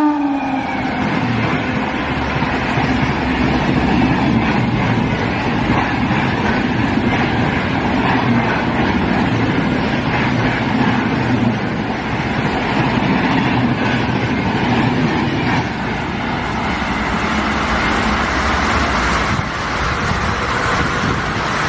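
Passenger train hauled by a WAP-7 electric locomotive running past at speed: a loud, steady rush and rumble of wheels on rail. The tail of the locomotive's horn falls in pitch and dies away in the first moments.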